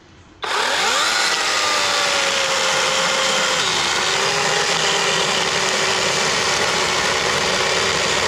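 Kobalt battery-powered electric chainsaw starting about half a second in, its motor whine rising quickly to speed, then running steadily while cutting wood. The pitch steps down a little partway through.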